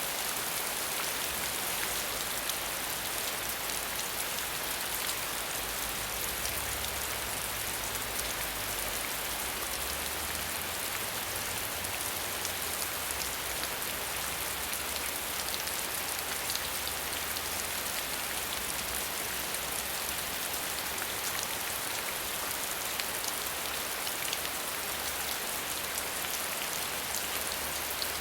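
Steady heavy rain falling: a dense, even hiss full of small drop ticks, with a faint low rumble underneath at times.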